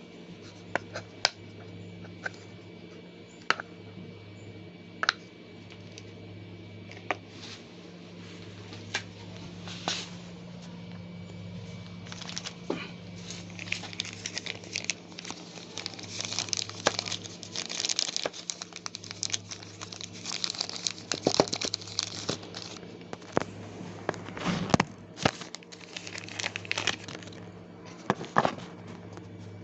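Packaging being handled and unwrapped: scattered sharp clicks and taps, then a long stretch of dense plastic crinkling and rustling from about twelve seconds in, over a steady low hum.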